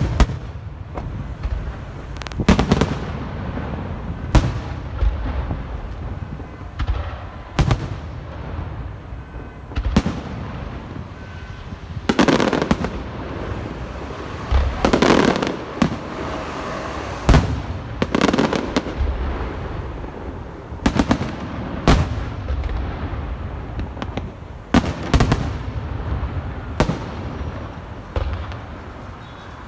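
Fireworks display: aerial shells bursting in sharp booms every couple of seconds over a steady low rumble, with longer crackling stretches in the middle. The sound fades out near the end.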